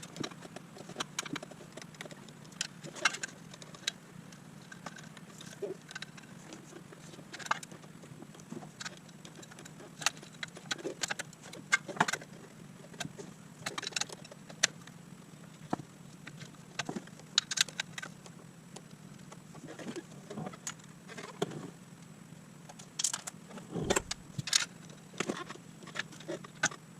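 Irregular metallic clinks and clicks of hand tools and bolts being worked while a clutch pressure plate is fitted and bolted to an engine flywheel, over a steady low hum.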